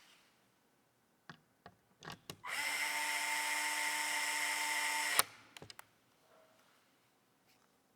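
Electric screwdriver running steadily for about three seconds, driving a screw, and stopping with a click. A few light clicks and taps come before and after it.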